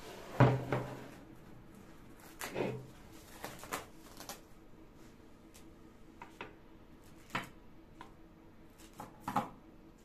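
Scattered light knocks and taps of cookies and a glass baking dish being handled on a wooden table, the cookies set down one by one on a parchment-lined tray. The loudest is a thump about half a second in.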